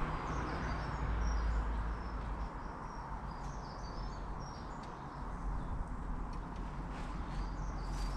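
Small songbirds chirping in short, high, scattered notes over a steady low rumble, with a few faint ticks near the end.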